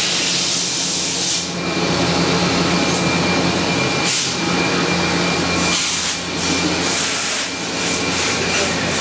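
Fadal 4020HT vertical machining center running under power, a steady fan-like drone with a constant high whine and low hum. Several bursts of hiss come and go over it, near the start, about four seconds in and again around six to seven seconds.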